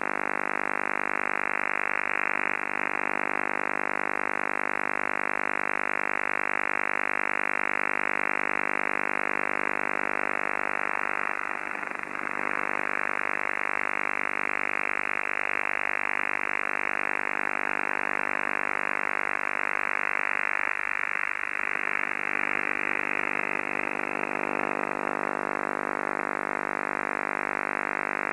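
Unidentified buzzing transmission received on the 11-metre CB band, heard through the radio's speaker: a steady, many-toned buzz that wavers briefly twice.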